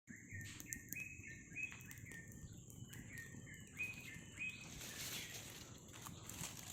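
A songbird singing a run of short whistled notes, each rising then held briefly, repeated about twice a second, over a steady high hiss. After about four and a half seconds the song gives way to rustling noise with a few clicks.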